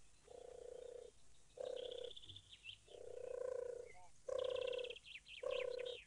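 Dove cooing: a series of about five low, even coos, each around a second long, with rapid high trills from small birds over several of them.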